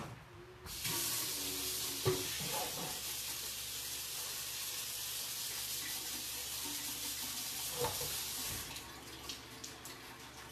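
Kitchen faucet running steadily into the sink as garden lettuce is washed under it, turned off near the end, with a couple of light knocks in between.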